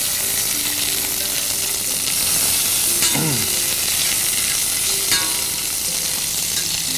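Lamb pieces and garlic cloves sizzling steadily as they fry in a deep stainless steel pan, while a metal fork and spoon turn them; a short metallic tap about five seconds in.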